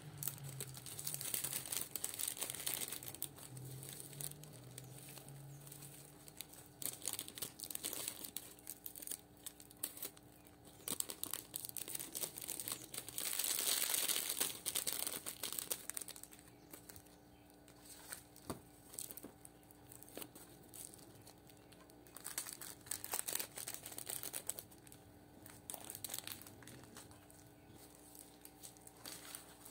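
Thin clear plastic bags and a disposable plastic glove crinkling and rustling as dried loose-leaf tea is handled and packed, in irregular bursts, loudest about halfway through.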